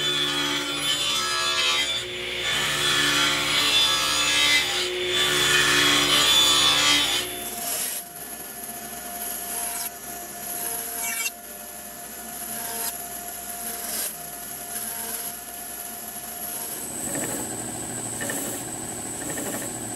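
Table saw cutting kerf slots through a walnut block in three loud passes, then a band saw running more quietly while it trims the ends off glued-in inserts, and near the end a drum sander running.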